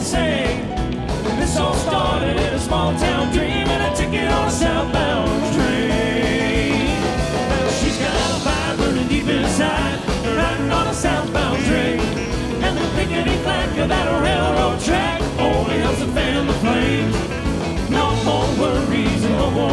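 Live country-rock band playing, with drums, electric guitar and keyboards, while a four-man vocal quartet sings in harmony over it.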